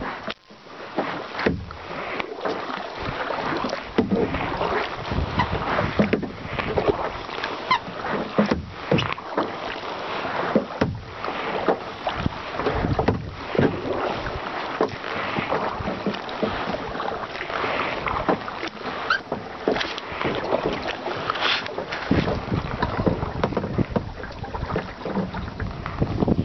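Choppy water lapping and splashing irregularly against a drifting plastic kayak's hull, with wind rumbling on the microphone, more so toward the end.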